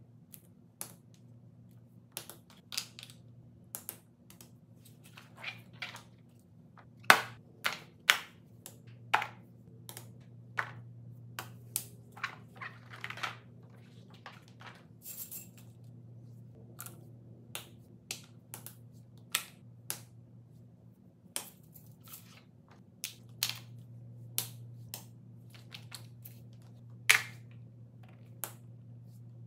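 Fidget toys, silicone pop-its among them, being set down, slid and picked up by hand on a foam board: irregular taps and clicks, some sharper than others, over a faint steady low hum.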